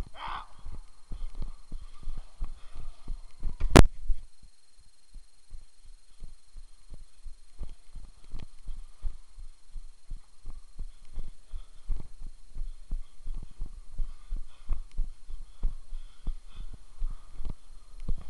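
Rapid low thuds in an uneven rhythm, the footsteps and knocks of a body-worn camera as the player moves, with one sharp crack about four seconds in.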